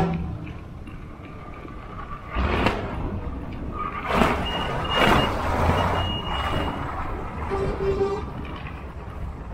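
Old military trucks and jeeps driving slowly past, their engines a low rumble that swells louder three times, about two and a half, four and five seconds in, as vehicles go by. A faint thin high tone sounds briefly a couple of times near the middle.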